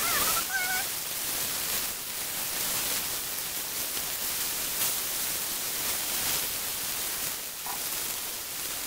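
Mushrooms sizzling steadily as they sear in oil in a frying pan, with a few light clicks as tongs turn them and a short squeak near the start.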